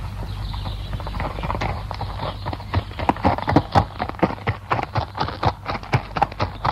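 Horses galloping: a rapid, uneven drumming of hoofbeats that grows louder and sharper about halfway through, over a steady low hum.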